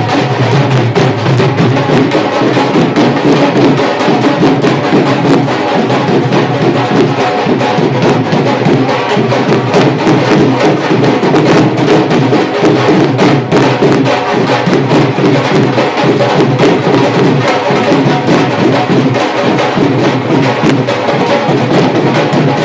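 Punjabi dhols, double-headed barrel drums beaten with sticks, playing a fast, unbroken rhythm.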